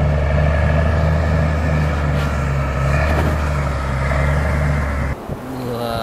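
Crawler bulldozer's diesel engine running steadily as it pushes earth with its blade, a deep, even drone. It cuts off abruptly about five seconds in.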